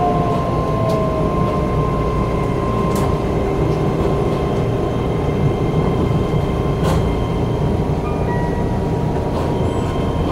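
Keihan electric train heard from inside the car, moving slowly through a station: a steady running rumble with a motor whine that falls in pitch near the start, as the train slows. A few sharp clicks from the wheels on the rails come through.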